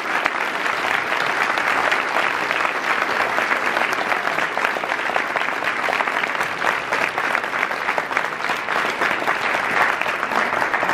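A roomful of people applauding together, dense and steady clapping.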